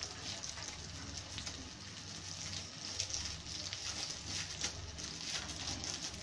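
Crushed garlic frying in soybean and coconut oil in a wok: a steady sizzle with scattered crackles and pops, over a low steady hum.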